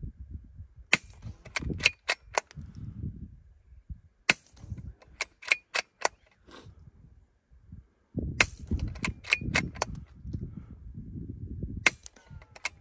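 Suppressed .22 LR rifle shots through a Little Spoon rimfire silencer with CCI Quiet low-velocity ammunition: sharp, quiet cracks in three quick groups with pauses between, and one more near the end.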